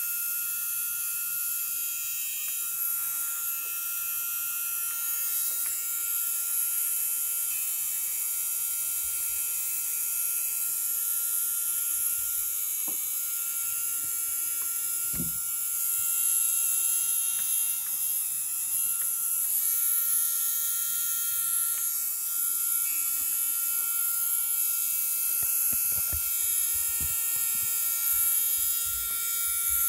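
Kyosho LeMans 480 Gold brushed electric RC motor running steadily at low voltage with a high-pitched whine, during brush break-in. A few light knocks around the middle and near the end.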